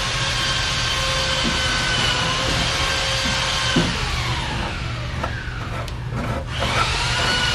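A small electric motor, like a shop tool or vacuum, running steadily. Its pitch sags about four seconds in and comes back up a couple of seconds later, under a few faint taps.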